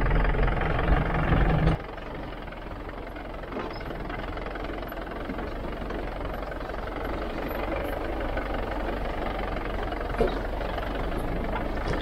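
A jeep's engine running steadily. About two seconds in it drops to a quieter, even rumble that carries on.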